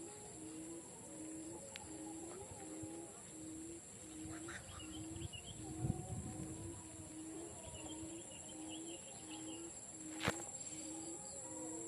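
A bird repeating a short low note over and over, evenly, about one every three-quarters of a second, over a steady high insect drone. A low thump comes midway and a sharp click near the end.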